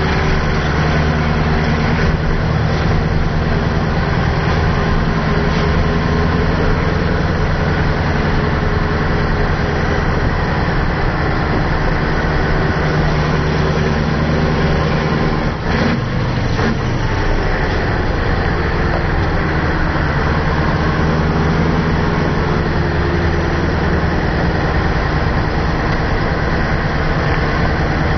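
Scania 141 truck's V8 diesel engine running steadily under way, heard from inside the cab, with a brief dip in level about halfway through.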